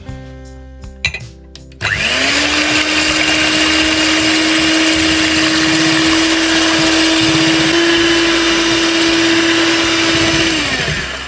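Electric hand mixer running at a steady speed, its twin beaters whipping egg whites into a foam. The motor spins up about two seconds in, holds an even pitch with a slight step up later, and winds down near the end.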